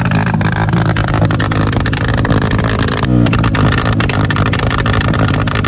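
Yamaha R15's 155 cc single-cylinder engine revving through a full-system aftermarket exhaust, with a rapid, continuous crackle of backfire pops. A brief dip about three seconds in, then the revs climb again.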